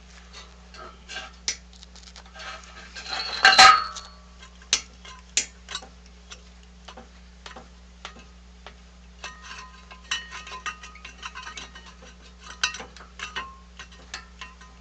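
Steel tools and parts being handled: a run of small metallic clicks and clinks, with one loud metal clatter about three and a half seconds in, over a steady low hum.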